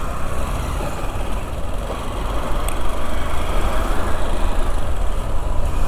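Motorcycle ride in city traffic: steady engine and road noise with a low rumble of wind on the microphone.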